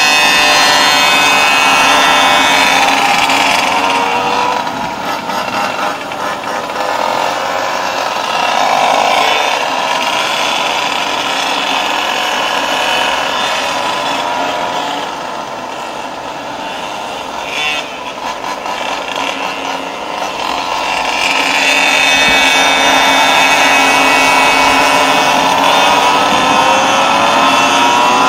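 High-revving small two-stroke engine of a stand-up Goped scooter, a tuned CY47 with a Know Fear expansion pipe, running with a high, buzzing whine that rises and falls with throttle. It eases off through the middle and is back at full throttle near the end.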